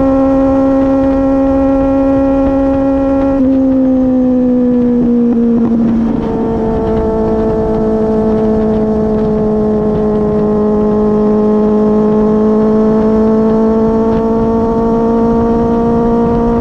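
Kawasaki Z800 inline-four with an aftermarket Daivo exhaust, running hard at highway speed, a steady high drone over wind rush. About three seconds in the throttle eases and the pitch falls over a couple of seconds as the bike slows. It then holds a lower steady note and climbs slightly near the end as the rider picks up speed again.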